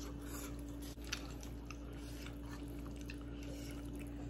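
A person chewing food: soft, irregular mouth clicks and smacks over a steady low hum.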